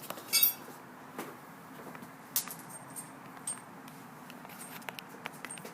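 Scattered clicks and clinks of hand tools and metal parts being handled while a car starter motor is refitted, with a brief metallic rattle about half a second in.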